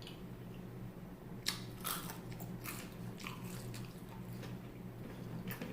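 Close-up chewing of a crispy fried chicken sandwich: a few crunchy bites and wet mouth clicks clustered between about one and a half and three and a half seconds in, over a steady low hum.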